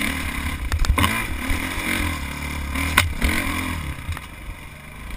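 Dirt bike engine revving up and down under varying throttle on rough trail, with a few sharp knocks about a second in and at three seconds. The throttle eases off and the engine quiets near the end.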